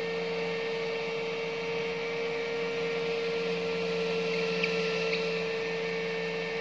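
Steady electrical hum with a hiss, carried by one strong steady tone, from a home-made egg incubator with a heat bulb. About two-thirds of the way through come two short high peeps, half a second apart.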